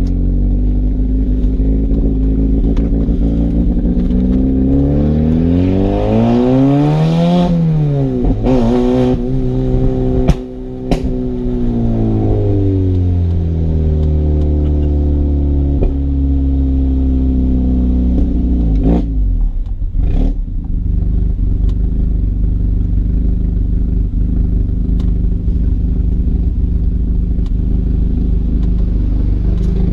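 Car engine running close by, its pitch climbing for a few seconds and then easing back down to a steady low run. There are short bursts of hiss near the top of the climb and a few sharp clicks afterwards.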